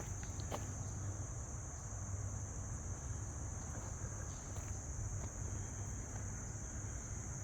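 Steady, high-pitched chorus of insects such as crickets or katydids, over a low steady rumble.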